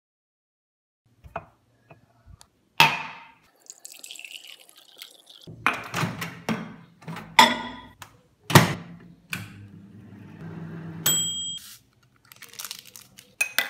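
Kitchen handling sounds: knocks and clunks around a white manual-dial microwave oven, a low hum for several seconds, and a single bright ding about eleven seconds in. Near the end a metal spoon clinks against a ceramic mug as instant coffee granules are spooned in.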